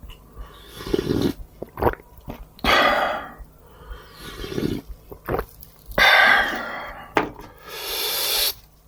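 Close-miked eating sounds: slurping of seafood jjamppong noodles and broth in about four loud, noisy pulls, with chewing and a few sharp clicks in between.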